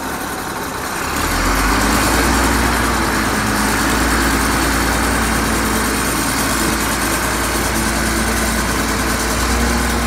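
Shantui SD16 crawler bulldozer's diesel engine picking up speed about a second in as the dozer moves off, then running steadily under load while it drives and turns on its tracks.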